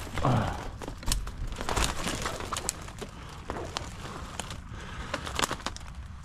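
Someone pushing through dense dry brush on foot: twigs snapping and scraping, and dry leaves crackling underfoot in scattered clicks. There is a short louder low sound just after the start.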